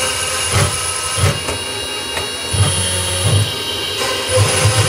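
CNC router spindle running with a steady whine as its small bit cuts into a wooden board. A low hum swells and fades in uneven pulses as the head moves along the cut.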